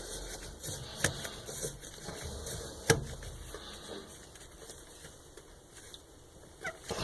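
Sharp clicks and light knocks of handling as a 3/8-inch flex water supply line is fitted to a toilet, with two louder clicks about a second in and just before three seconds.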